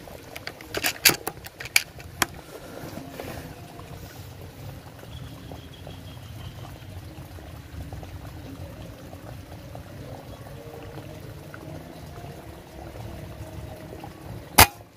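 Steady low outdoor background noise with a few sharp clicks about a second in, then a single sharp crack of an air rifle firing near the end.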